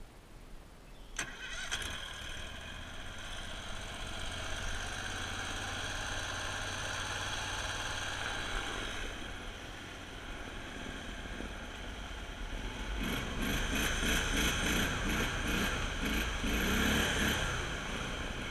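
Copperhead surface-drive mud motor on a jon boat starting about a second in, then running steadily. It revs up and runs louder from about two-thirds of the way in as the boat pushes through marsh vegetation.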